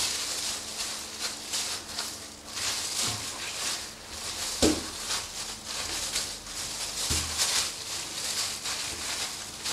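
Butcher's knife slicing a layer of fat off raw pork, with intermittent scraping and rustling of plastic gloves against the meat, and one sharp click about four and a half seconds in.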